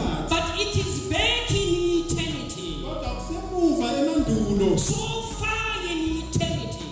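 An amplified man's voice preaching in a chanting, sing-song delivery, its pitch rising and falling in long phrases.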